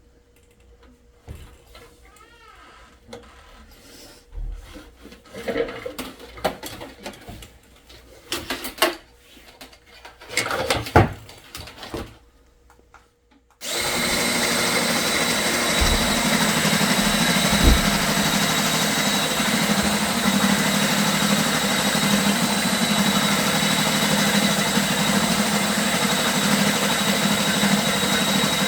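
Scattered knocks and clicks from handling, then about halfway through a Goldsnake GS6/30 flex-shaft drain-cleaning machine starts abruptly and runs steadily with a thin high whine. It is spinning its shaft to grind hardened scale out of a sewer pipe.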